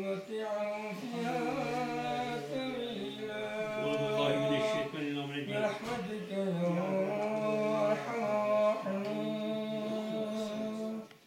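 A man chanting solo into a microphone in long, drawn-out held notes that bend and glide, in two long phrases with a short break about halfway.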